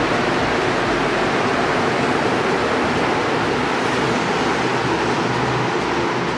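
Montréal Métro MR-73 rubber-tyred subway train pulling out of an underground station, a loud steady rolling rumble that eases slightly near the end as the last car enters the tunnel.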